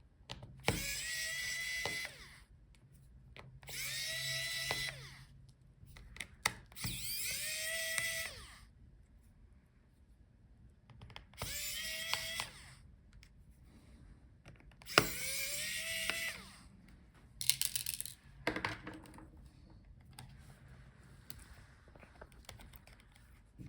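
Electric precision screwdriver backing out small laptop screws: about five short whirring runs of a second or so each, each rising in pitch as the motor spins up, with small clicks of screws and tools in between.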